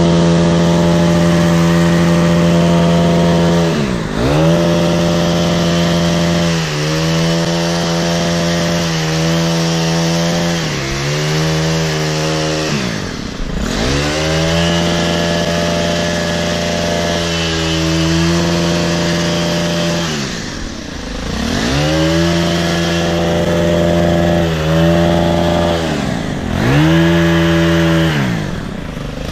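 Stihl KM 90 R KombiMotor's small 4-MIX engine running at high throttle, driving an articulating hedge trimmer attachment. About four times the engine note drops sharply and climbs straight back as the throttle is let off and squeezed again, with smaller wobbles in pitch in between.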